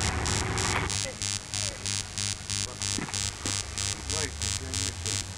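Electrical mains hum with a rhythmic, pulsing buzz of static from an old videotape soundtrack, about two pulses a second; a denser rush of noise cuts off suddenly about a second in.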